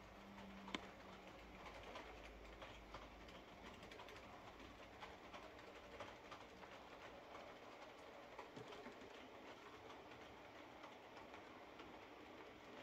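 Faint rolling rattle of a model railway train running on the layout's track, with many small wheel and rail-joint clicks and one sharper click about a second in.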